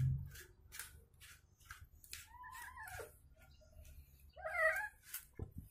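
A domestic cat meows twice while being brushed, a falling call about two seconds in and a shorter one near the end. Under it are soft scratchy strokes of a slicker brush through its fur, about three a second.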